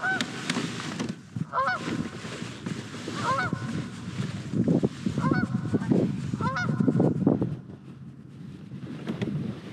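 Goose honking: five short honks about a second and a half apart, over a low rumbling noise.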